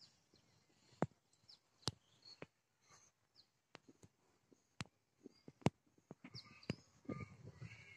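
Faint birds chirping in short high calls, with a handful of sharp isolated clicks scattered through.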